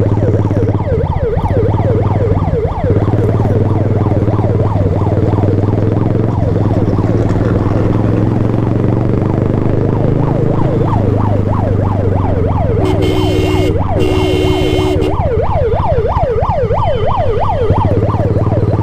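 Ambulance siren yelping rapidly, several up-and-down sweeps a second, over the steady hum of a motorcycle engine. A vehicle horn sounds two short blasts about two-thirds of the way through.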